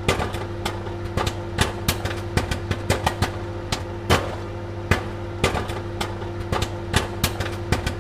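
Popcorn kernels popping: sharp, irregular pops, several a second, over a steady low hum.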